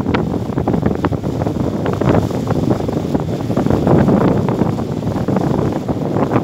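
Wind buffeting the microphone on a moving boat, a loud steady rumble with irregular gusty crackles, over the wash of choppy river water.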